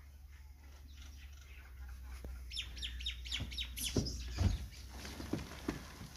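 Small birds chirping in a quick run of high chirps about two and a half seconds in, then several knocks and one heavy thud as the wooden bed of a bull cart is tipped and its load of soil slides off, over a steady low hum.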